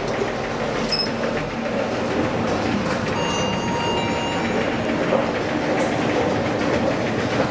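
Stockholm metro train running in the station: a steady rumble of wheels on rails, with a faint thin whine in the middle.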